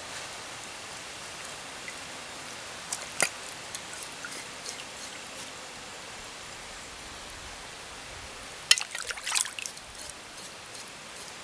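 Steady outdoor hiss, like a small stream trickling, with a sharp click about three seconds in and a quick cluster of crackles and snaps near nine seconds.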